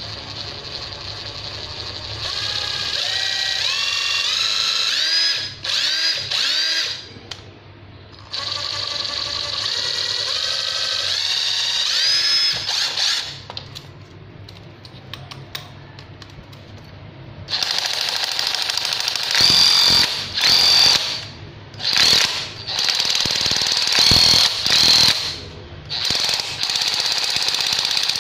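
Bosch PDR 12 V cordless impact driver running with no load, its motor whine rising in pitch twice as the trigger is squeezed. From about 17 seconds in it runs in short, loud, stop-start bursts with its impact mechanism hammering.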